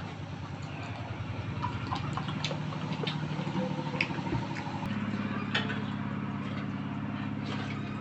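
An engine running steadily with a fast pulsing hum, its note stepping up about five seconds in. Scattered light clicks sound over it.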